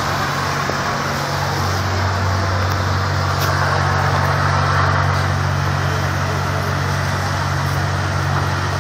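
Fire engine's diesel engine running steadily: a constant low drone under a broad rushing noise.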